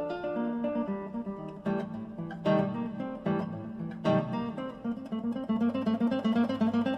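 Background music on acoustic guitar: plucked notes with a few strummed chords, then a quicker run of repeated notes from about five seconds in.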